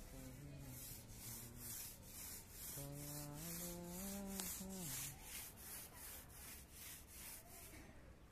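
Paint roller on a pole rolled back and forth over a rough concrete floor, a rhythmic rasping rub of about two to three strokes a second as it spreads floor paint. A short voice is heard about three seconds in.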